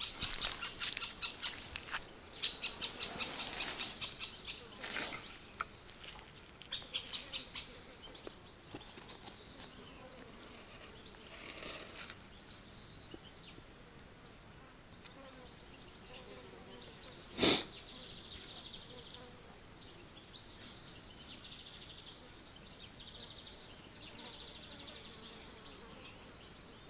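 Birds singing and chirping, busiest in the first few seconds and thinning out after, with one sharp knock about seventeen seconds in, the loudest sound.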